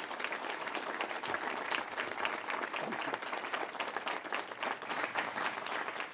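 Large seated audience applauding, many hands clapping steadily.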